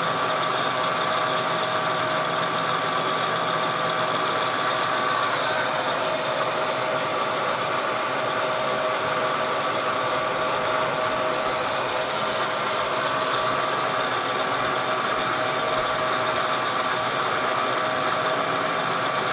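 Bridgeport milling machine running a homemade fly cutter with a single-point carbide cutter, taking a slow-feed facing cut across an aluminium Kawasaki S2 350 engine case deck. It makes a steady whine with a fast, even chatter of the cutter.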